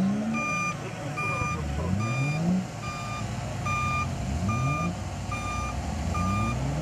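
A vehicle's reversing alarm beeps steadily, a short beep about every 0.8 seconds, while an off-road vehicle's engine revs up four times, rising in pitch and dropping back each time.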